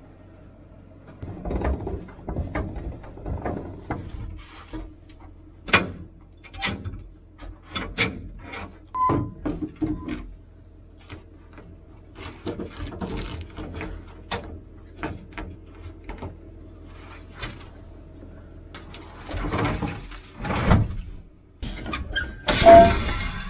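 Scattered metal clanks, clicks and knocks from hitching a gooseneck cattle trailer to a pickup, over a steady low engine idle that drops out about three-quarters of the way through. A louder clatter comes near the end.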